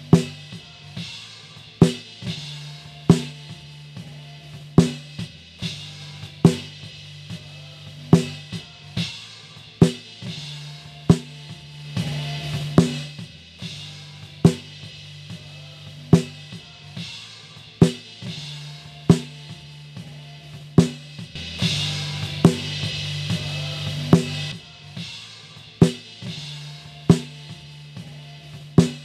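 Snare-drum top microphone from a live worship-band recording played back on its own: a sharp snare hit about every 1.6 s, with steady spill from the rest of the band and kit (a low hum and, around two-thirds of the way through, a wash of cymbals) between the hits. That spill is the unwanted noise a noise gate on the snare mic is being set to remove.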